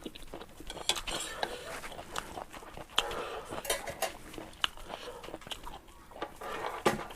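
Eating ramen noodles: a utensil clicking and clinking against the bowl several times, with the mouth sounds of eating in between.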